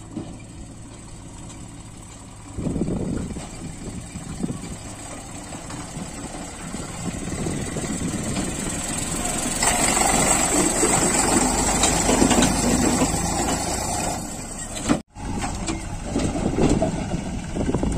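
Tractor's diesel engine running steadily, growing louder about ten seconds in, with a brief dropout about fifteen seconds in.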